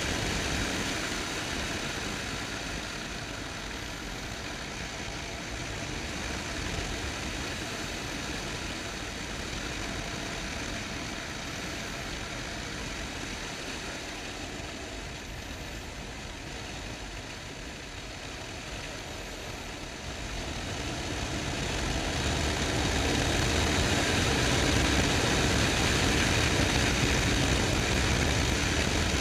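Motorcycle engine running on the move, mixed with wind noise from riding. The sound grows clearly louder about two-thirds of the way through.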